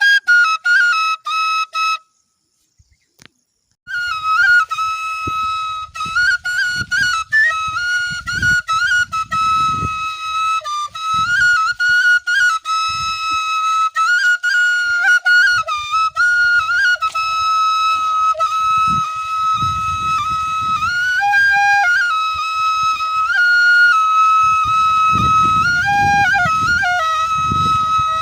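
Bansuri (bamboo flute) playing a folk tune that mostly holds one high note, with short upward flourishes every few seconds; it breaks off for about two seconds near the start.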